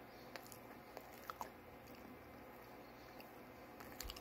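A person chewing a soft OREO Cakesters snack cake with the mouth mostly closed, faint, with small wet clicks scattered through and a couple of louder ones near the end.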